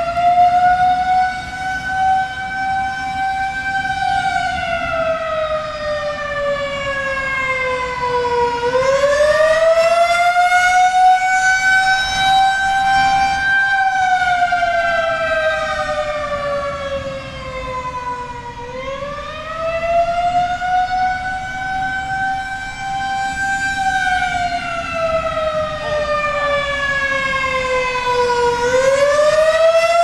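Federal Signal 2001-SRNB electromechanical rotating siren sounding the attack signal. It is a wail that climbs over a few seconds, holds at the top, then slowly falls before climbing again, about every ten seconds. The loudness swells and fades as the horn rotates.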